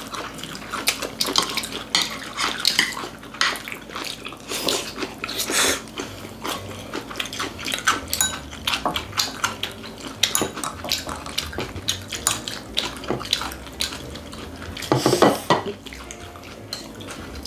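Chopsticks clicking and scraping against ceramic plates and bowls in quick, irregular taps, with chewing and other eating sounds in between.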